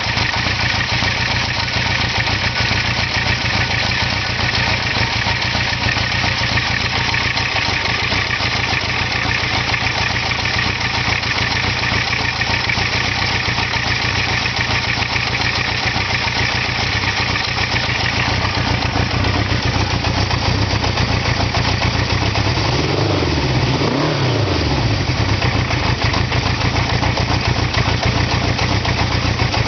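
Engine idling steadily, recorded to show an idle noise that the owner takes for a problem. About three quarters of the way through, the revs briefly rise and fall back.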